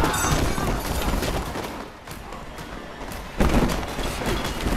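Film fight sound effects: heavy blows and impacts, the loudest about three and a half seconds in.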